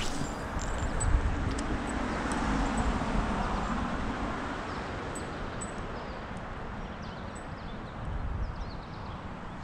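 Steady rushing outdoor noise by a river, with a low rumble on the microphone, and small birds chirping several times, more often in the second half.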